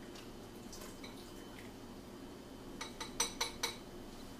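Ladle scooping soup out of a metal stockpot into a bowl: faint liquid sounds, then a quick run of about five light clinks of the ladle against the pot about three seconds in.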